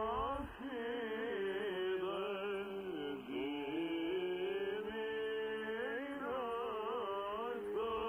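Slow, held chanted singing played through the speaker of a Sangean 909 portable radio tuned to an AM broadcast. The sound is thin and muffled, with the top cut off as AM reception gives it.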